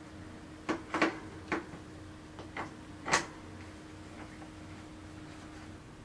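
Short sharp clicks and knocks of bicycle parts and tools being handled while a crank arm is swapped: about five or six taps in the first three seconds, the loudest about three seconds in, over a faint steady hum.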